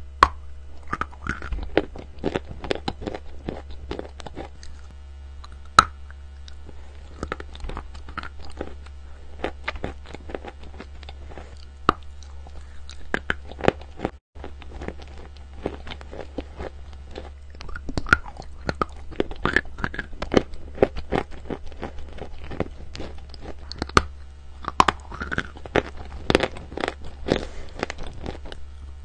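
Chalk crunching between teeth: a block of chalk being bitten and chewed in clusters of sharp, dry crunches, over a steady low hum.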